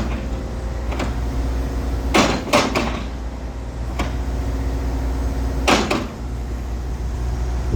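Hitachi ZX135US-7 excavator's diesel engine running steadily, with several sharp clunks over it, two close together about two seconds in and another near the end.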